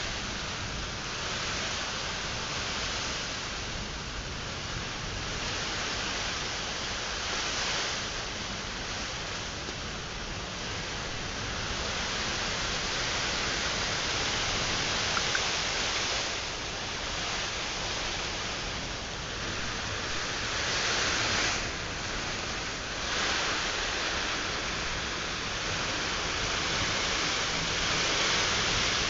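Heavy rain of a kalbaishakhi (nor'wester) storm, a steady hiss that swells and eases a little, loudest near the end.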